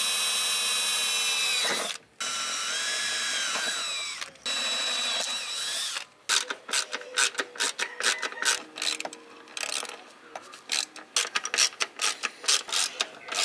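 DeWalt 20V cordless drill/driver driving screws to mount an HID ballast, running in three bursts of steady motor whine, the second dipping in pitch partway through. From about six seconds in, a run of irregular clicks and knocks.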